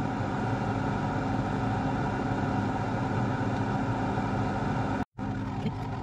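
Fume extractor fan running with a steady hum. The sound cuts out briefly about five seconds in.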